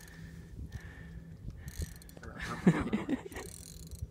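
Fishing reel clicking and ratcheting steadily while a large hooked fish is played on the line. A brief vocal sound breaks in a little past the middle.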